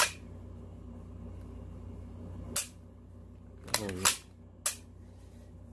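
Sharp metallic clicks of a CZ 805 Bren rifle's action being worked and dry-fired: one click right at the start, another about two and a half seconds in, a quick pair near four seconds and a last one shortly after.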